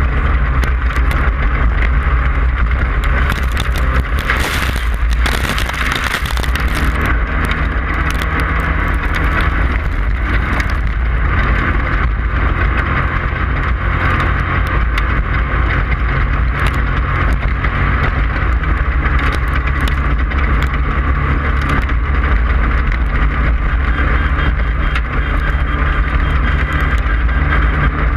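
Class 5/1600 off-road race car's air-cooled 1600 cc VW flat-four engine running hard at speed, loud and steady, amid heavy wind and road noise.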